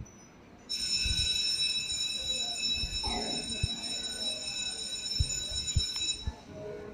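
A steady, high, alarm-like electronic tone played as a sound effect in a mime play's recorded backing track. It starts abruptly about a second in and cuts off near the end, with a few dull thumps underneath.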